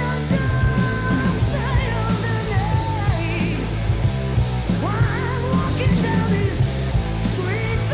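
Melodic hard rock demo recording: a female lead vocal holding long, wavering notes over a full rock band with bass and drums keeping a steady beat.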